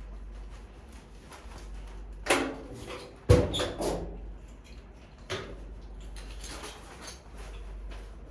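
A few short knocks and scrapes over a low steady hum, the loudest a sharp knock a little past three seconds in.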